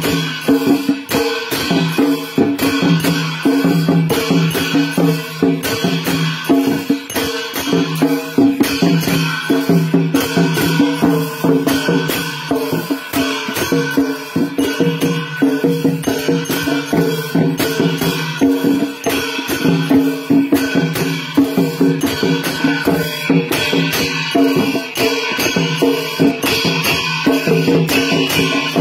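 Traditional Newar music for the Lakhe dance: drums and clashing cymbals playing a fast, steady, driving rhythm.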